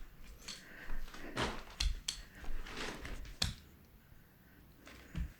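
A handful of irregular knocks and rustles, like things being handled or bumped, then a quieter stretch and one last knock near the end.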